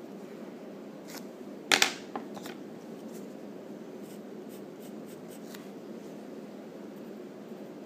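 Wooden pencil sketching on paper: short scratchy strokes, with one much louder sharp scrape a little under two seconds in, over a steady low hum.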